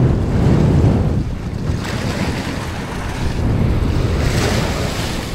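Wind buffeting the microphone, with surf washing against the rocks of a jetty in swells.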